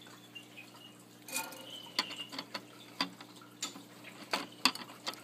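Scattered small clicks and light metallic taps of a screwdriver working a screw out of the metal chassis of an 8-inch floppy disk drive, with a faint steady hum underneath.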